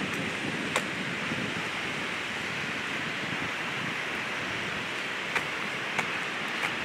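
Steady rush of a river in flood, with four short sharp clicks, one about a second in and three close together near the end.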